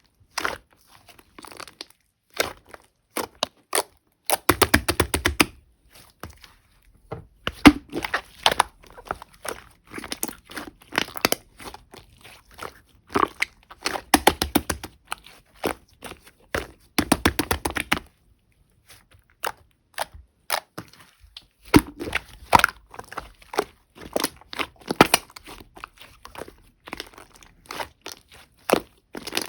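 Slime being squished, pressed and stretched by hand, giving sticky clicks and pops as small air pockets burst. Several stretches bring fast trains of crackling pops, and quiet gaps fall between them.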